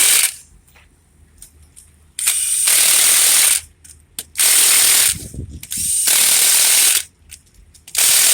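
Milwaukee cordless impact wrench hammering on a wheel's lug nuts in four bursts of about a second each, with short pauses between.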